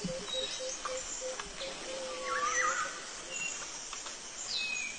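Tropical forest ambience: birds whistling and chirping, with a louder warbling call about two seconds in, over a faint pulsing insect drone that stops about halfway.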